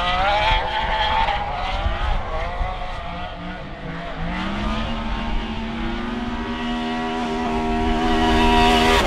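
Naturally aspirated 5-litre V12 (Toyota 1GZ-FE based) in a Nissan S14 drift car, revving hard through a drift with tyre noise underneath. The engine note wavers, climbs about halfway through, then holds at high revs and grows louder near the end.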